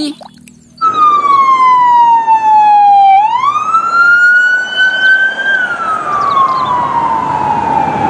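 Police car siren wailing: a single pitched tone that starts just under a second in, slides slowly down, rises over about two seconds, then slides down again.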